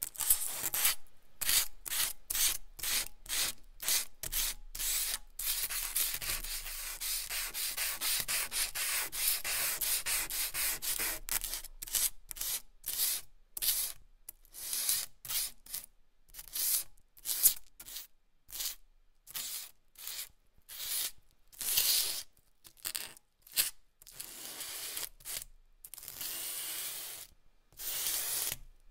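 A lump of pineapple charcoal rubbed back and forth on smooth 220 g/m² paper, a dry scratchy rasp at each stroke. For several seconds the strokes run together into a steady scraping, then they come apart again at about two to three a second.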